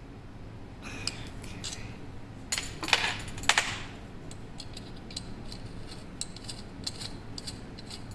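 Small metal parts of a puzzle lock and its keys clicking and clinking as they are handled, with a louder scraping rattle about three seconds in.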